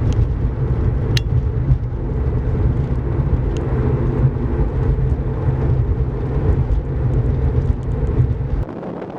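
Steady low rumble of a car driving, heard from inside the cabin, with a couple of sharp clicks; the rumble cuts off suddenly near the end, leaving a fainter hiss.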